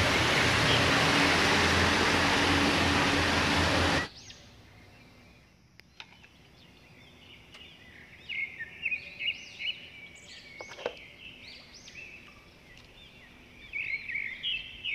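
Double-decker bus engine running with street noise for about four seconds, cutting off suddenly. After that, birds chirp repeatedly in the background.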